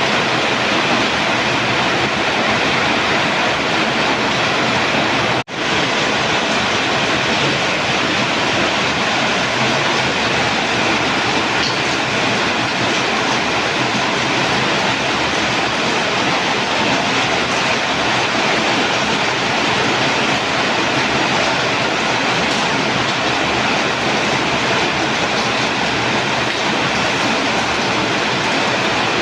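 Heavy rain pouring down in a steady, loud hiss, with the sound cutting out for an instant about five seconds in.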